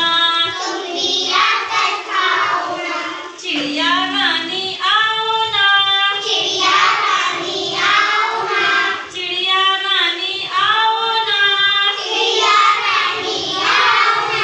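A child singing in a high voice, phrase after phrase of a song with rising and falling pitch.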